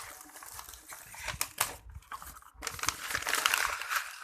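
Packaging crinkling and rustling as a potted plant is unwrapped by hand, with a few sharp clicks about a second and a half in and a louder, denser stretch of crinkling near the end.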